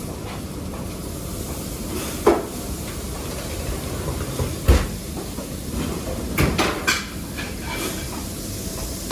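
Working kitchen noise: a steady hiss with scattered knocks and clatter of pans and utensils, the sharpest about halfway through and a quick cluster about two-thirds in.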